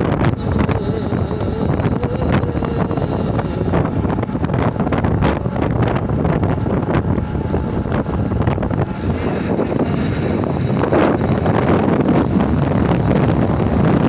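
Steady loud rumbling noise with wind buffeting the microphone in uneven gusts.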